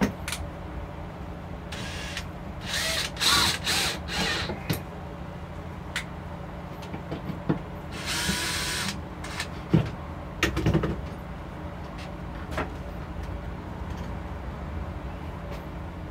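DeWalt cordless drill-driver running into plywood in short bursts: several between about two and five seconds in and one longer run about eight seconds in. Knocks and clicks from the drill and wood being handled fall in between.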